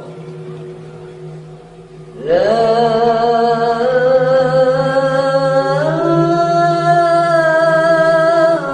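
Dzikir chanting: after about two seconds with only a steady low drone, a voice comes in and holds one long drawn-out note, stepping up in pitch a little past the middle, over the same low drone.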